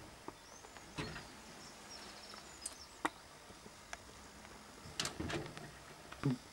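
Scattered light clicks and knocks of computer parts being handled and set in place in a PC case, with a small cluster about five seconds in and a sharper knock near the end.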